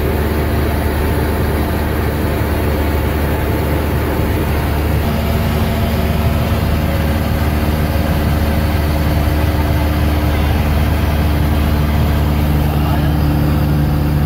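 Light airplane's engine and propeller droning steadily, heard inside the cabin.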